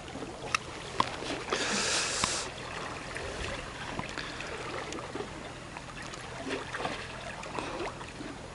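Small waves lapping and washing against a rocky shoreline, with a few light clicks and a brief hiss about a second and a half in.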